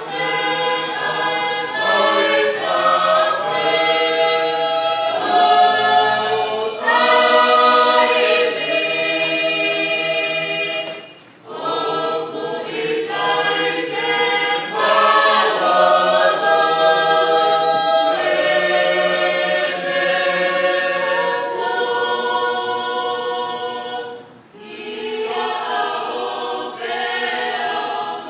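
Choir singing a hymn unaccompanied, in several parts, with long held chords. The singing breaks off briefly between phrases about 11 and 24 seconds in.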